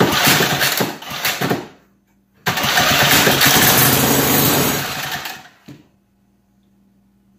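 1968 Toro Snow Hound 20 snowblower engine spun over with a cordless drill, catching and running twice: a rough burst of about a second and a half, then a steadier run of about three seconds that fades out. The engine is firing under the drill after repairs.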